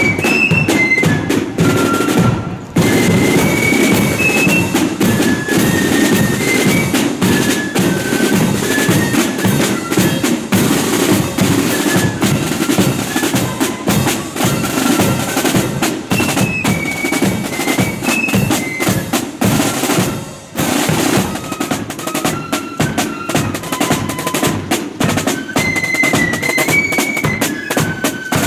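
Marching flute band playing a tune: flutes carry a high, stepping melody over rattling side drums and a bass drum. The playing briefly drops away twice, about two and a half seconds in and again about twenty seconds in.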